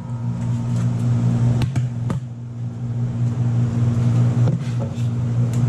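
A steady low machine hum, with a few light knocks and clatters as a stack of plastic containers is taken down and handled.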